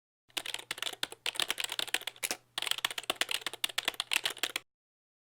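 A fast, dense run of small sharp clicks and clacks in two stretches, with a brief break near the middle.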